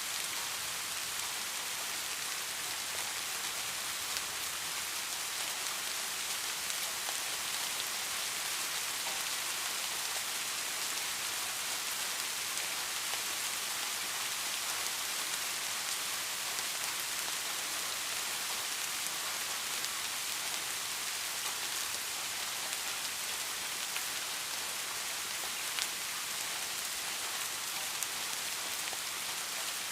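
Steady rain falling, a constant hiss with scattered small drop ticks.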